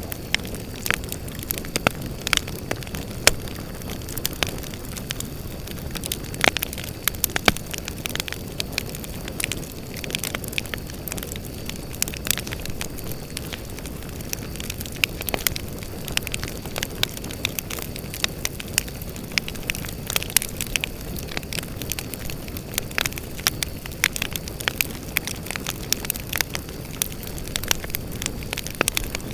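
Campfire of burning firewood logs crackling, with frequent irregular sharp pops over a low, steady rush of flame. A faint, steady high trill of grass insects runs underneath.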